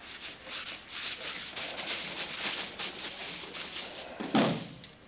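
Bare feet sliding and judo uniforms rustling on the tatami mat, then near the end one heavy thump of a body landing on the mat.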